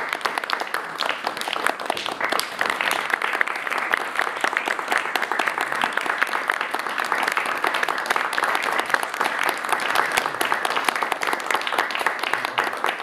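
Audience applauding steadily: dense, continuous clapping that keeps an even level.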